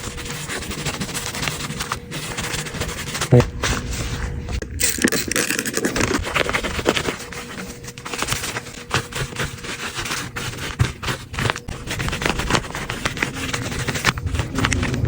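Scraping and handling noises from work on an iPad, under background music, broken up by many abrupt cuts.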